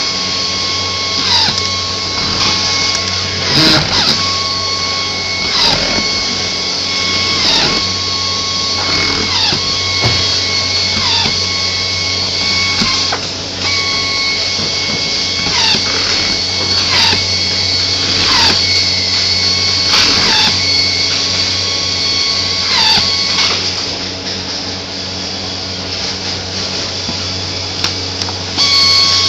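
Pneumatic screw gun driving screws one after another into a trailer's roof vent fittings. Each drive is a whine that falls in pitch as the screw seats, repeating about every second and a half over a steady whine.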